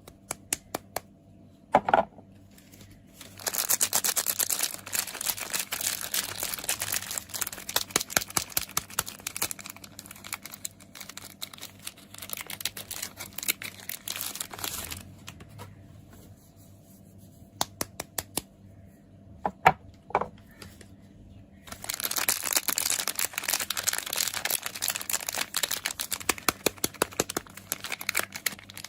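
Soap packaging being unwrapped: crinkling and tearing of the wrapper in two long spells, with scattered clicks and handling sounds in the quieter stretch between them.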